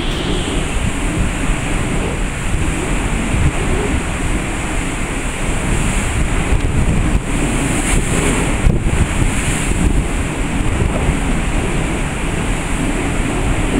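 Strong wind buffeting the microphone in an uneven low rumble, over the steady hiss of a rough, wind-whipped sea.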